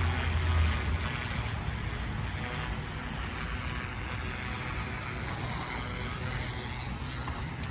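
FW200 GPS RC helicopter hovering, a steady whir from its electric motor and rotor blades, a little louder in the first second.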